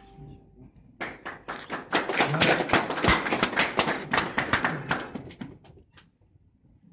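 A small audience clapping, starting about a second in, thickening into dense applause and dying away after about five seconds.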